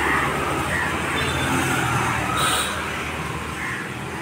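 Road traffic: a motor vehicle passing, its engine and tyre noise swelling and then fading over the last second or so. A brief high chirp sounds about two and a half seconds in.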